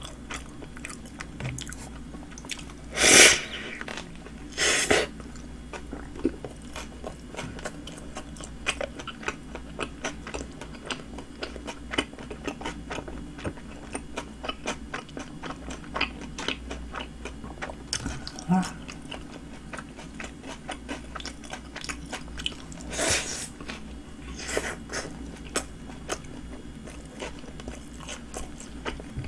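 Close-miked chewing and biting of a Subway sandwich on soft flatbread: a steady run of small wet mouth clicks, with a few louder brief bursts of noise about 3, 5 and 23 seconds in.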